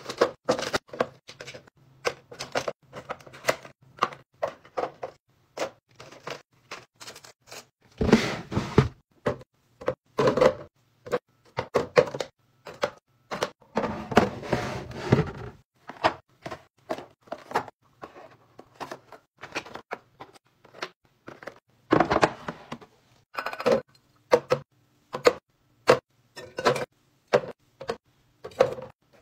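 Plastic bottles, small boxes and aerosol cans being set down and repositioned in clear plastic organizer bins: an irregular run of light clacks, taps and knocks, with three longer scuffing stretches as items or a bin slide against plastic and shelf.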